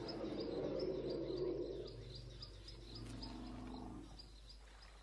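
African bush ambience: a regular high chirping a few times a second, with a low droning animal-like call in the first two seconds and a shorter, lower one about three seconds in.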